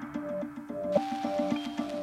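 Background music: a light electronic track with a pulsing, repeating figure of short tones, the heavy beat having dropped out.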